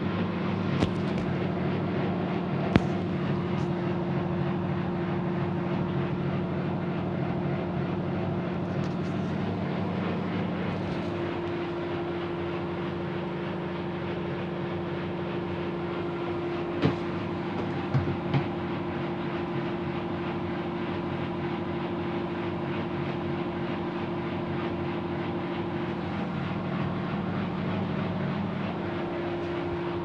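Whirlpool FSCR90425 front-loading washing machine in its 800 rpm spin, its motor and drum giving a steady, even hum. A few short knocks come through, about a second in, near three seconds in, and three around seventeen to eighteen seconds in.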